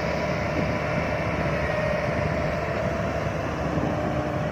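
Heavy diesel engine running steadily at a constant pitch.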